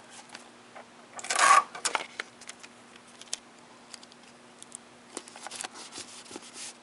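Tape and paper being handled during a book repair: one short rustling rip about a second and a half in, as of tape pulled from a roll, then scattered small clicks and rustles of paper, over a faint steady hum.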